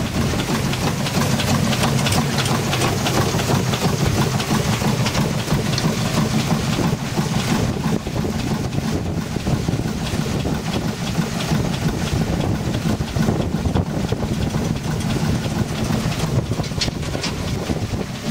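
Steady low wind rumble on the microphone, over the running noise of a steam launch under way on open water.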